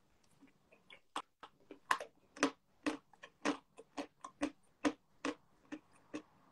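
A person crunching chalk between the teeth: sharp crisp crunches, about two to three a second, unevenly spaced.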